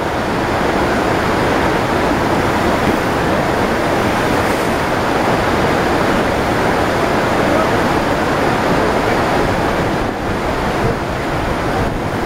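Steady, loud rush of pumped water pouring up the surface of an artificial surfing wave machine and curling over into a barreling wave.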